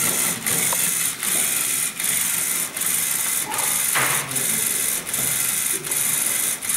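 LEGO Mindstorms EV3 large servo motor running and driving a small three-gear plastic gearbox: a steady mechanical whir of motor and gears that dips briefly and regularly, about every three-quarters of a second.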